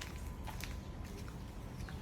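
Footsteps: a person walking, heard as scattered light clicks over a steady low rumble.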